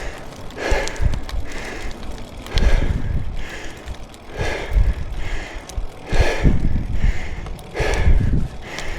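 Cyclist breathing hard under effort on a climb, a rough, rhythmic puff of breath about once a second.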